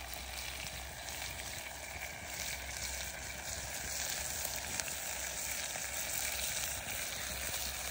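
Slippery jack mushrooms frying in garlic butter in a hot pan, a steady sizzle throughout.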